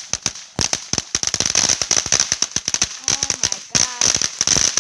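Consumer ground fountain firework going off, a rapid, irregular string of sharp crackling pops over a steady high hiss.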